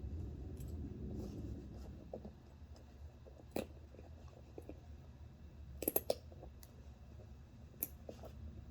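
Small sharp clicks and taps of hands working on a scale RC crawler's wheel and tire, with soft handling rustle in the first couple of seconds. The clicks are scattered, with a quick run of three about six seconds in.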